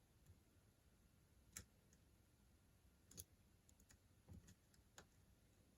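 Faint, scattered clicks of a lock pick working the pins inside a padlock fitted with security pins, as the pick reaches for a deep pin at the back of the lock.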